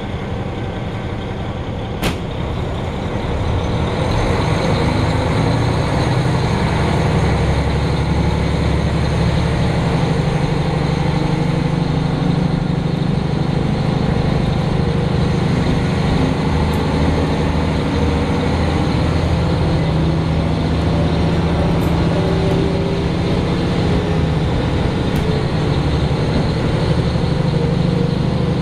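Diesel railcar running, heard from inside the passenger cabin: a deep engine drone mixed with wheel and rail noise. It grows louder a few seconds in, then holds steady. There is one sharp click about two seconds in.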